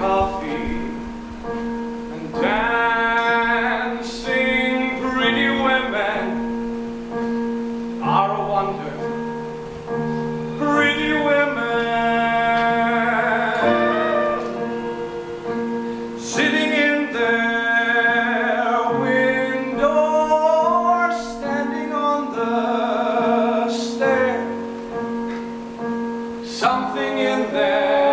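Show tune sung with piano accompaniment: voices in phrases of a few seconds over held piano chords.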